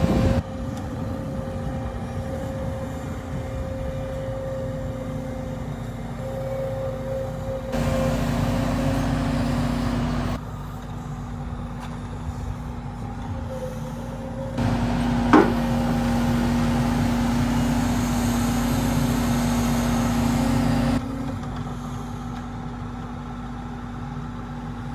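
Tracked demolition excavator's diesel engine running steadily, rising in level twice for a few seconds as it works the grab arm, with a single sharp knock about fifteen seconds in.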